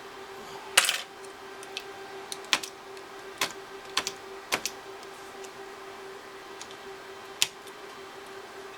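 Irregular sharp clicks and taps from small tools and parts being handled during hands-on calculator repair, the loudest about a second in, over a steady low hum.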